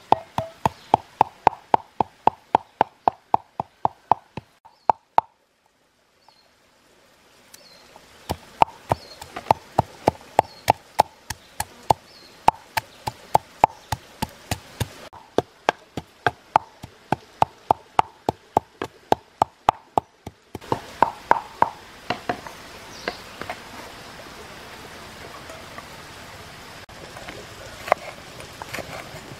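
Pestle pounding garlic in a wooden mortar, a steady run of sharp knocks about three a second, with a short break about five seconds in. After about twenty seconds the knocks thin out over a steady hiss.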